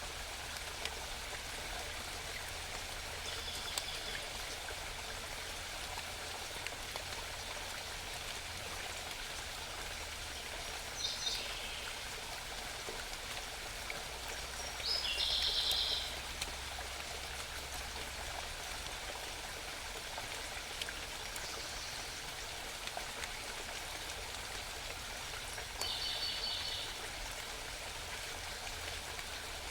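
Steady babbling of a small mountain stream. A wild songbird calls in short, high bursts over it about five times, the loudest about halfway through.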